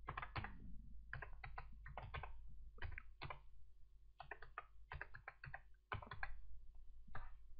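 Typing on a computer keyboard: faint, quick key clicks in several short runs with brief pauses between them.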